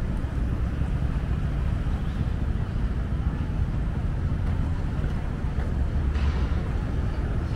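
City street ambience: a steady low rumble of traffic under a general hiss, with a brief swell of hiss about six seconds in.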